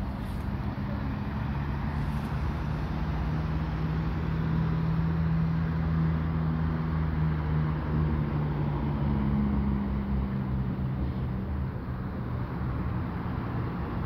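Road traffic with a vehicle engine running, a low steady hum that swells a little through the middle.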